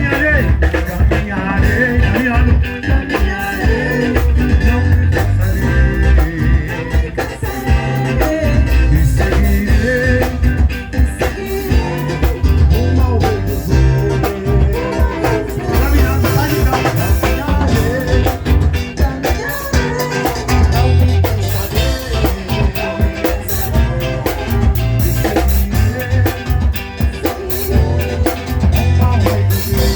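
A live band playing a song: drum kit, bass and guitar with a singing voice over them.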